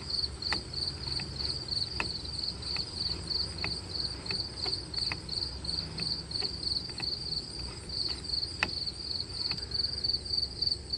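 Crickets chirping in a steady, rapid pulsing trill, with scattered faint sharp clicks now and then.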